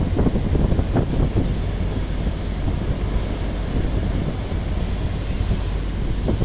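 Strong wind buffeting the microphone over the steady, heavy rush of storm surf.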